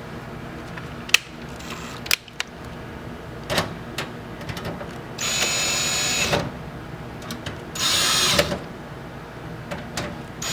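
Power drill driving mounting screws into a PC power supply's metal case: two bursts of about a second each, around five and eight seconds in, each with a high motor whine. Sharp handling clicks come before them.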